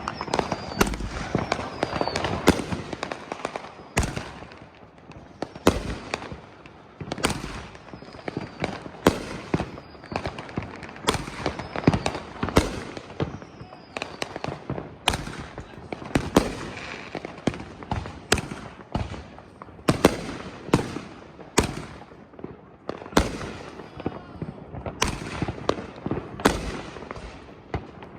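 Consumer fireworks going off in a steady run of sharp bangs, about one or two a second, with crackling between them.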